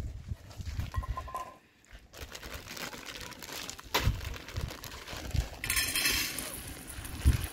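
Crinkling and rustling of a plastic food packet being handled and torn open, loudest as a sharp rustle about six seconds in.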